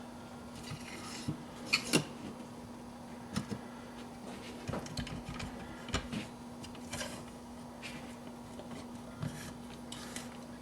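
Scattered light metal clicks and taps of the outer magazine tube of a Winchester Model 1890 pump rifle being slid into place under the barrel, toward the receiver, over a steady low hum.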